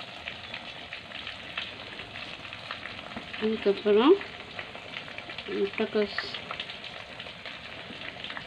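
Oil sizzling steadily in a frying pan, a constant crackling hiss with many small pops.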